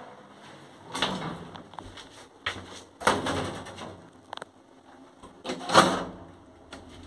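Doors of an old Zremb residential lift being shut and latched: a series of clunks, scrapes and sharp clicks, the loudest clunk near the end.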